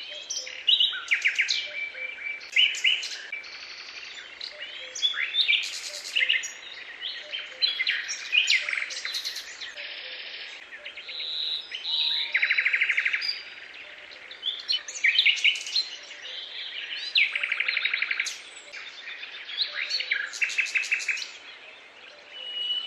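A chorus of several songbirds singing and calling at once: overlapping chirps, rapid trills and short whistles, with no pause.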